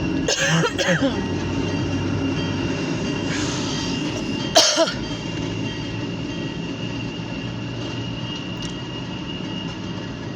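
Freight train rolling past slowly, the diesel locomotive's steady low rumble under the wheels on the rails, with a faint steady high tone. A brief loud noise stands out about four and a half seconds in.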